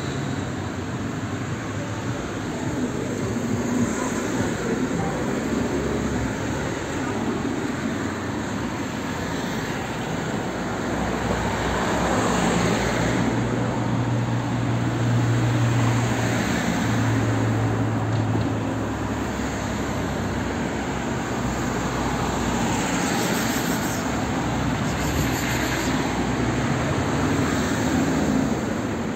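Steady outdoor traffic noise with a low engine drone that swells in the middle and fades again.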